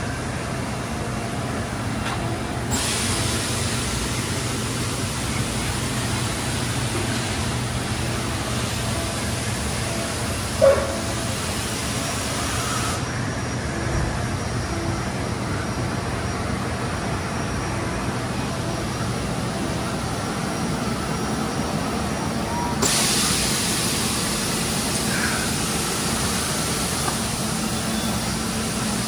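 Steady machine-shop background hum with a high hiss that switches on and off sharply a couple of times, and a single knock about ten seconds in.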